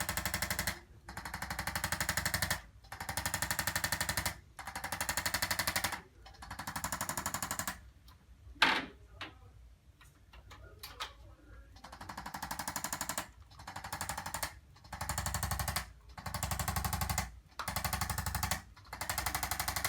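Handheld electric percussion instrument hammering rapidly against the patient's back in repeated bursts of one to two seconds, working the joints to break up muscle tightness. One sharp knock stands out about nine seconds in, during a short lull.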